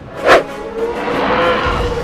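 Background music with a short, loud whoosh sound effect about a third of a second in, followed by a long steady held tone.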